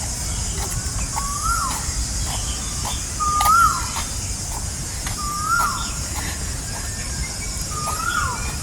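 A bird repeating the same short whistled call about every two seconds, five times: each note holds briefly, then drops in pitch. Behind it runs a steady high-pitched insect hiss.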